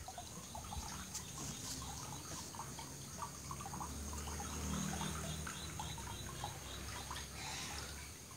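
Faint water trickling and dripping, with scattered short high chirps over a low steady hum.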